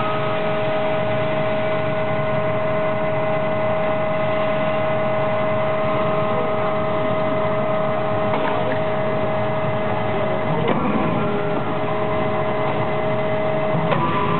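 Forging-line machinery around a CNC hydraulic die forging hammer running with a steady drone and several constant whining tones. A few faint knocks come a little past the middle and again near the end.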